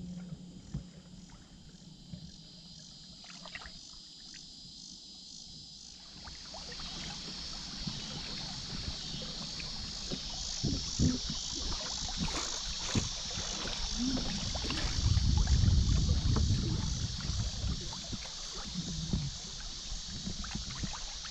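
Kayak on a river: water rushing and splashing around the hull, with irregular paddle-stroke splashes, getting louder from about six seconds in as the boat moves into rippling current. Insects chirr steadily in the background.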